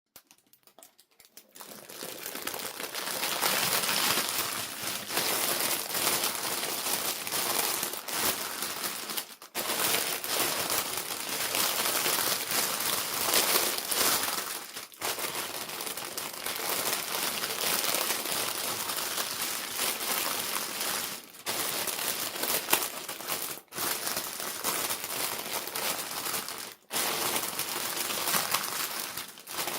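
Crinkly plastic doll packaging being handled and unwrapped: a dense, continuous crackle, broken off briefly a few times.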